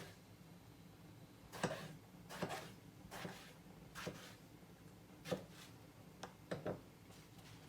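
Light clicks and knocks of kitchen utensils, about seven scattered irregularly, over a faint steady hum.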